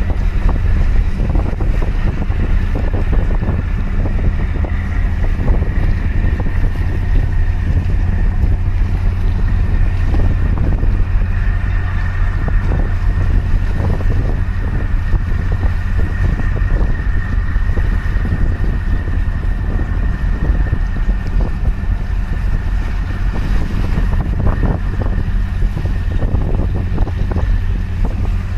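Strong wind buffeting the microphone over the steady drone of a harbour tug's diesel engine, with a high whine held throughout.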